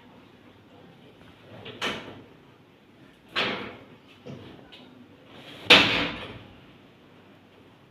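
Three sharp thuds on a chiropractic treatment table as the practitioner delivers adjustment thrusts, with a fainter knock between the second and third; the last is the loudest.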